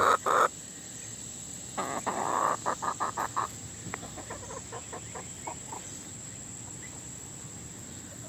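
Chickens clucking in a quick run of short calls about two seconds in, then a few scattered soft clucks that die away.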